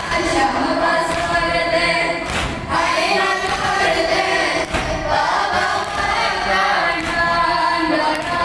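A group of boys chanting a noha (Shia mourning lament) in unison through microphones, unaccompanied, with men's voices of the congregation joining in. A few hand thuds of chest-beating (matam) come through now and then.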